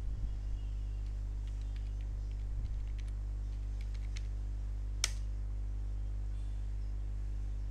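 Computer keyboard being typed on in a quick run of light key clicks, then one sharper key press about five seconds in as the address is entered, over a steady low electrical hum.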